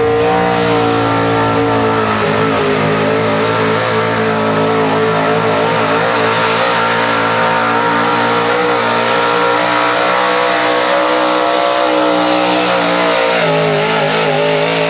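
Small-block V8 of a square-body Chevrolet 4x4 pickup held at high revs under heavy load while pulling a weight-transfer sled, its tires spinning in the dirt. The engine note holds high and wavers a little, then starts to drop near the end as the pull winds down.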